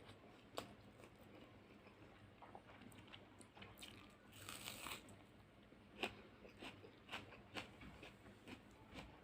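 Quiet close-up chewing of a mouthful of fish curry and rice, with scattered short wet mouth clicks and smacks; the sharpest click comes about six seconds in.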